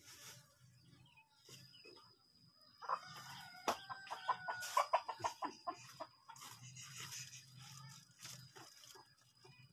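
Bird calls: a quick run of short pitched calls starting about three seconds in, with a thin steady high tone from about four seconds on.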